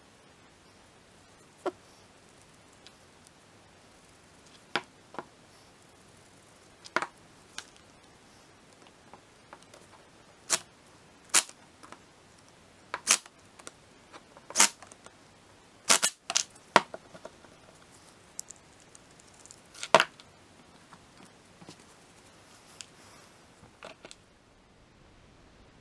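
Irregular sharp metal clicks and knocks as tools and parts of a power steering valve are handled and set down on a wooden workbench, with a run of louder knocks around the middle and one more a few seconds later.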